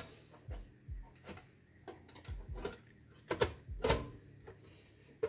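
Sheet-metal housing of a hi-fi unit being slotted back into place and handled: a handful of separate light knocks and clunks, the loudest two close together about three and a half to four seconds in.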